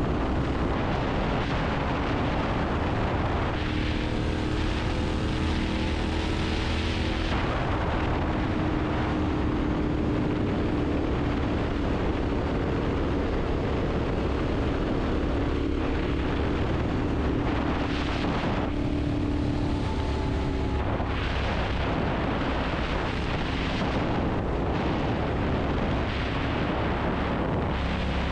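Wind rumbling steadily on a GoPro's microphone, with a faint droning tone that wavers slightly in pitch.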